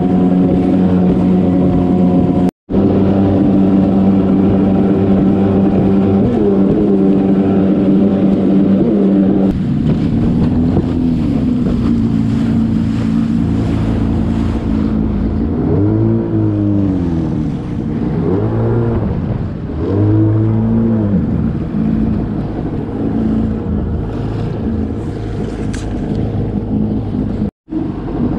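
Jet ski engine running at steady high revs, then from about ten seconds in its pitch repeatedly rises and falls over choppy water, with water spray and wind noise underneath. The sound cuts out completely for an instant twice.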